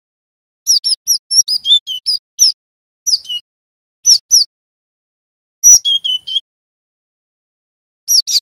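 Cinereous tit (glatik batu) song: short runs of quick, sharp, high chirps, one longer rapid run followed by brief phrases about a second apart, with silence between.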